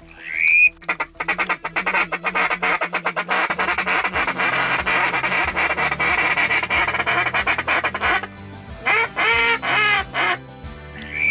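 A flock of waterfowl calling: a dense, rapid chatter of many birds for several seconds, then a few separate honking calls, with a short rising-and-falling whistled note at the start and again at the end.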